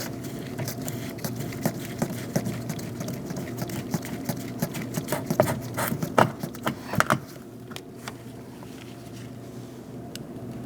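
Phillips screwdriver driving screws into a plastic door trim panel: irregular clicks and ticks for about seven seconds, then they stop. A steady low hum runs underneath.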